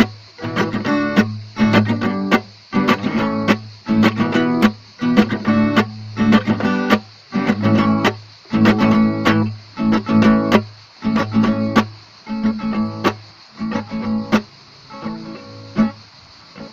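Instrumental guitar music: a guitar strumming chords in a steady rhythm, growing softer over the last couple of seconds as the song closes.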